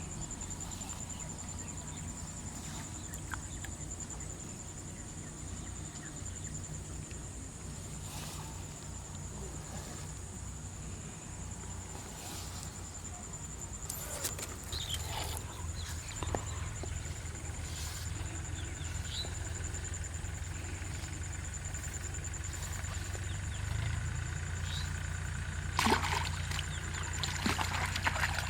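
Water splashing and sloshing in short spells, loudest near the end, over a steady low hum and a constant high-pitched whine.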